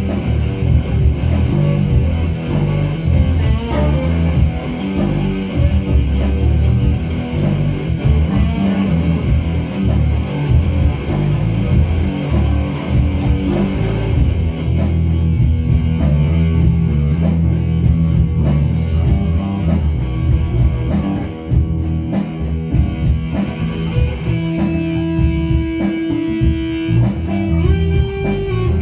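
Two amplified electric guitars playing a rock jam together, with a heavy low end. Near the end, held notes ring out steadily.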